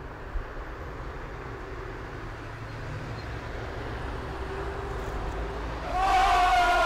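Steady low rumble of vehicles on a street. About six seconds in, a crowd of marching football fans starts a loud chant of long-held voices.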